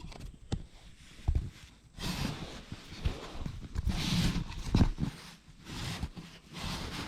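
Handling noise as a camera is moved and repositioned by hand: rustling, with a few sharp knocks and clicks.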